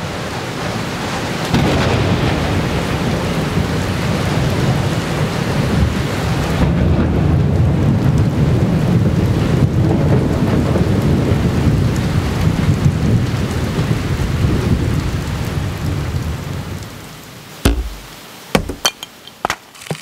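Rushing whitewater: a dense, deep roar that swells about a second and a half in and dies away near the end, followed by a few sharp clicks.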